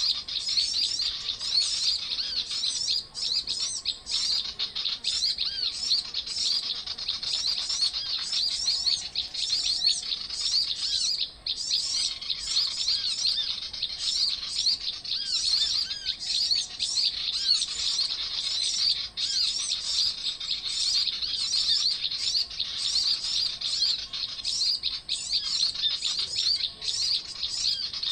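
A dense, unbroken chorus of high chirps and twitters from many small birds, the calls overlapping constantly.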